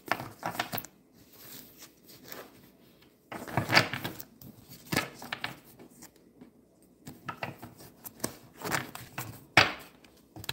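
Tarot cards being handled and shuffled: irregular clicks and short papery rustles and snaps, coming in separate runs with quiet gaps between them.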